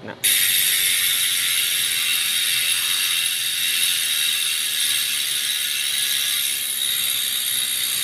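Cole rear bicycle hub freewheeling in a truing stand: the freehub pawls ratchet in a loud, steady, high-pitched buzz as the wheel coasts.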